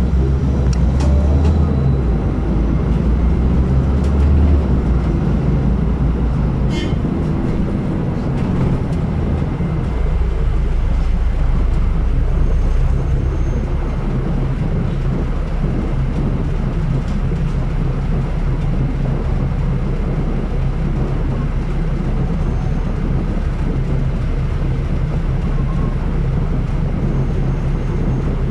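City bus heard from inside its cabin while driving: a steady low drone of engine and road rumble, heavier for the first four or five seconds. A short click comes about seven seconds in.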